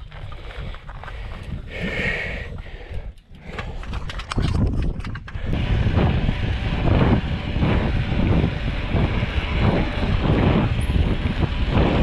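Wind buffeting a bike-mounted action camera's microphone as a mountain bike rides at speed on a road. It comes in loud and rumbling about four seconds in, after a quieter stretch.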